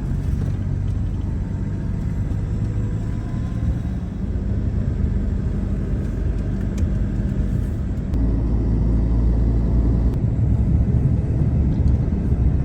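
Motor vehicle running: a steady low rumble of engine and road noise, growing louder about eight seconds in.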